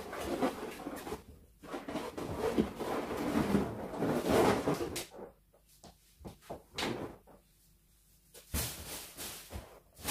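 Latex balloons rubbing and bumping together as a balloon cluster is worked into a garland by hand: irregular handling noises that thin out to scattered clicks midway and grow louder again near the end.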